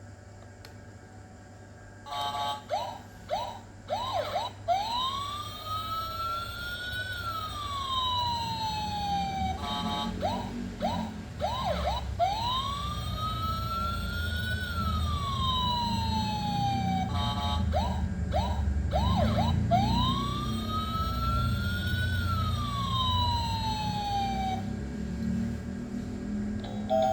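Electronic siren sound effect from a toy steering wheel: a few quick chirps, then a tone that slowly rises and falls, repeated three times. A low rumble runs underneath from about a third of the way in.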